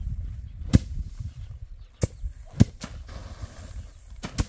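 A handful of sharp knocks at uneven intervals, two in quick succession near the end, over a low rumble.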